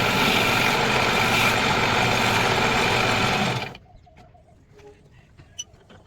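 Wood lathe running, a loud, steady machine noise that starts abruptly and stops about three and a half seconds in, leaving only faint ticks.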